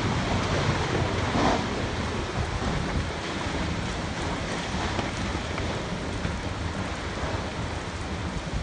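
Storm wind and rain: a steady rush of noise with heavy low buffeting of wind on the microphone.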